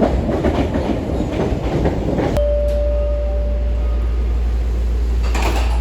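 Subway train running with a loud, steady low rumble and rattle; about two seconds in, a steady whine sets in for a second or two.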